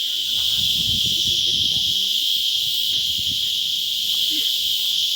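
Steady, loud chorus of insects, a continuous high-pitched buzzing that does not let up.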